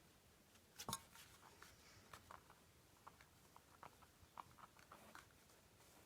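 Near silence: room tone with faint, scattered small clicks and taps, about a dozen, the clearest about a second in.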